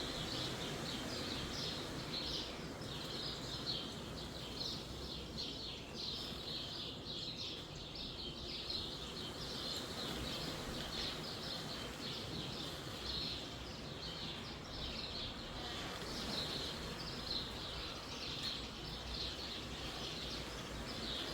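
Small birds chirping busily, many short overlapping chirps without pause, over a low rumble of wind.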